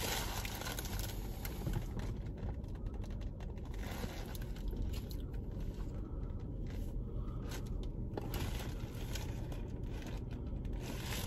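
Low steady hum inside a car's cabin, with faint small rustles of a paper burger wrapper being handled.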